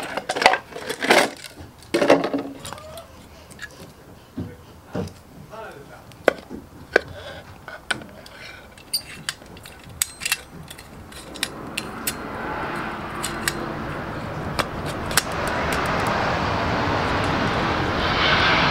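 Light clicks and knocks of a camping gas burner being handled and set down into a wooden stand with a steel ring. From about twelve seconds in, a passing train's rumble builds and becomes the loudest sound by the end.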